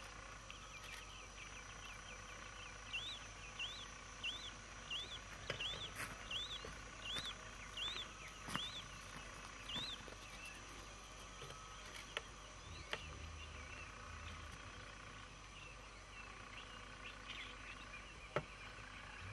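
Birds calling in the bush: one bird repeats a short up-and-down whistled note, roughly twice a second, for about seven seconds starting a few seconds in, over fainter chirps of other birds and a faint steady high hum.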